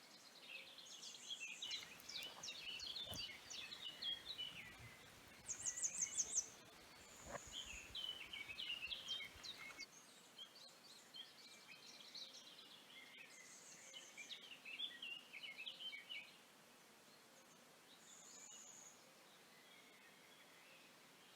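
Several birds singing and chirping, with quick high trills now and then; the calls thin out after about sixteen seconds. A faint low rumble sits under the first half.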